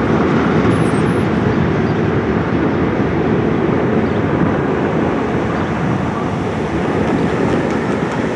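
Freight train of gondola cars rolling away, a steady rumbling noise that slowly fades as the last cars recede.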